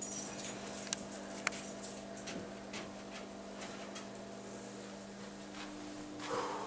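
Quiet room tone: a steady low electrical hum with scattered faint ticks and taps, and a soft rustle near the end.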